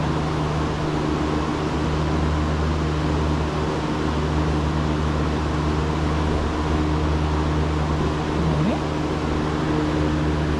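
Steady mechanical hum with a few constant low tones under an even rush of air noise, unchanging throughout.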